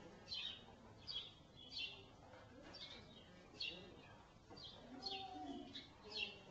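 Small birds chirping faintly and repeatedly, with short high chirps coming every half-second to a second.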